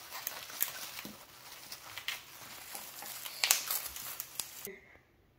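Plastic wrapping crinkling and rustling with irregular crackles as two vinyl figures are unwrapped from black plastic bags and bubble wrap; the rustling stops about four and a half seconds in.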